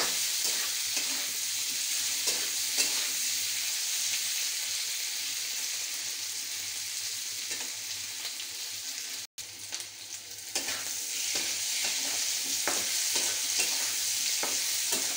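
Boiled, halved baby potatoes sizzling in hot oil in a steel kadhai, being fried until crisp, with a spatula stirring and scraping against the pan now and then. The sound drops out for an instant about nine seconds in.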